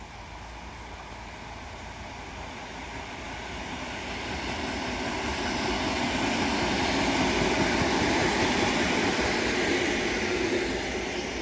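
EN57AL electric multiple unit passing at speed, its wheels running on the rails: the sound swells as the train draws near, is loudest as it goes by, and eases off slightly near the end.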